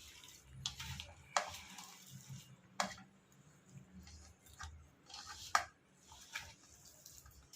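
Kitchen handling sounds: three sharp clinks or knocks of utensils or dishes, with soft rustling and stirring noises between them, while the spiced pasta vadai mixture is worked.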